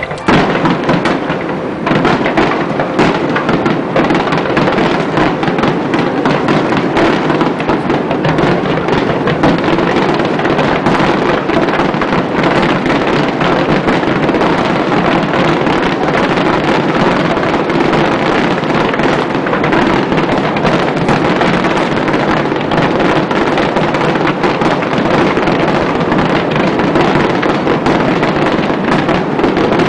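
Fireworks shells bursting in a dense, unbroken barrage: many overlapping bangs and crackles at a loud, steady level, thickening about two seconds in.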